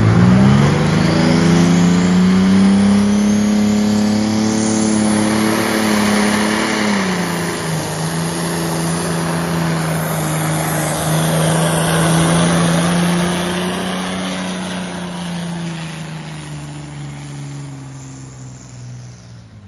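Heavy pro stock pulling tractor's turbocharged diesel engine revving up hard as the pull starts, then running flat out under the load of the sled, with a high whistle climbing in pitch over the first few seconds. The revs drop a little about seven seconds in, and the engine note fades over the last few seconds as the tractor moves away down the track.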